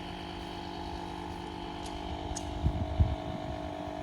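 Steady hum of a vehicle's motor, its pitch dropping a little about halfway through, with two low thumps a little before and at about three seconds in.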